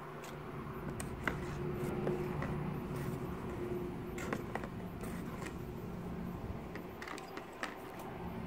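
Light clicks and taps of wooden chopsticks against a plastic tub and the copper pendants as they are lifted out of the liver of sulfur bath, over a steady low hum.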